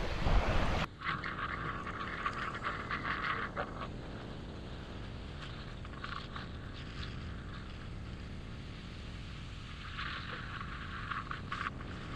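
Wind buffeting the microphone, loud for the first second and then cutting off abruptly, followed by a steady hiss of wind and sea with occasional brighter rushes of water.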